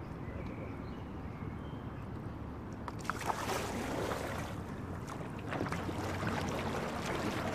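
Oars working the water as a single rowing scull is turned, with water splashing and lapping against the hull over a low wind rumble on the microphone. From about three seconds in the splashing gets louder, with small knocks from the oars.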